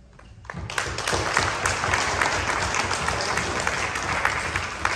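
An audience applauding: many hands clapping, swelling in within the first second and holding steady, thinning out near the end.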